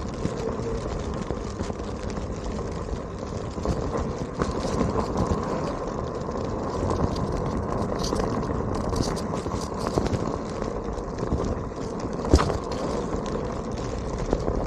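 Onewheel electric board riding: a steady rush of tyre and road noise scattered with small ticks and rattles, like grit and pebbles being thrown up. One sharper knock comes about twelve seconds in.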